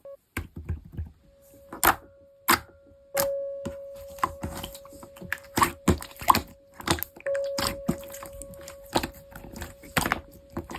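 Slime being squeezed and poked by hand, making an irregular run of sharp clicks and small pops, with a faint steady tone that comes and goes behind it.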